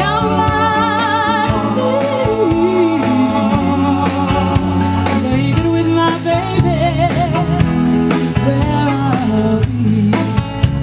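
Live band playing: drum kit and bass under a lead melody with vibrato, with keyboard and saxophone in the band.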